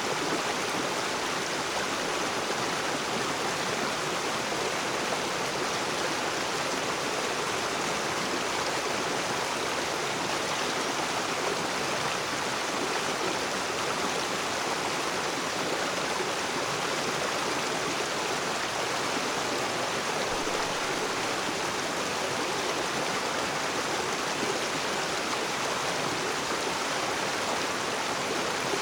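River water rushing and splashing over rocks, a steady, even noise with no breaks.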